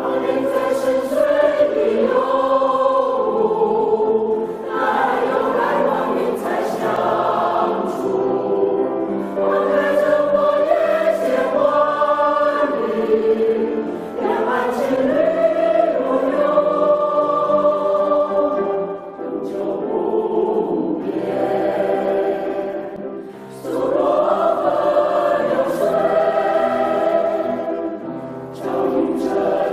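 A choir singing in parts, in sustained phrases with short breaks between them.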